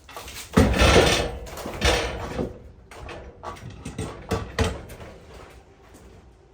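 A series of knocks and scraping, handling noises, loudest about a second in and growing sparser and fainter toward the end.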